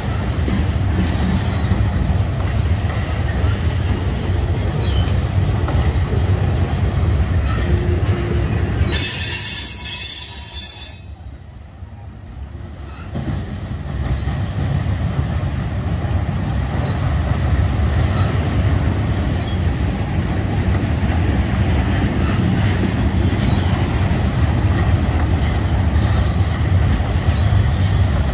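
A manifest freight train's cars rolling past with a steady low rumble of wheels on rail. About a third of the way in, the rumble fades for a few seconds and a brief high band appears before the rumble comes back.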